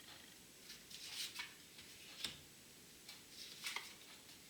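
Tarot cards being drawn and laid down: a few soft, irregular clicks and swishes of card against card.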